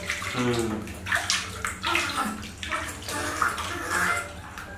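Water splashing and sloshing in a plastic basin as hands wash a baby monkey, with irregular small splashes.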